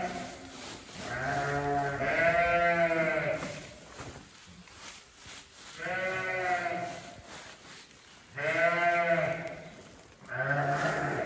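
Sheep bleating over and over: about five drawn-out, low bleats of a second or so each, two of them back to back, with short pauses between the others.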